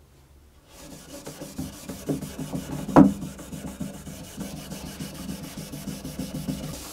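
A cloth rubbing linseed oil into a cello fingerboard in quick back-and-forth strokes, starting about a second in. There is a single sharp knock about three seconds in.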